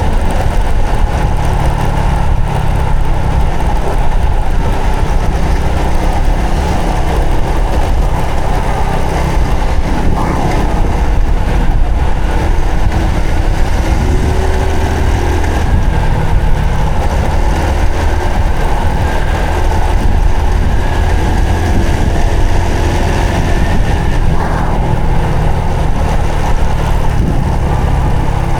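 Honda Supra X 125 FI's single-cylinder four-stroke engine running steadily while the motorcycle is ridden, pitch shifting gently with the throttle, under a constant rushing noise.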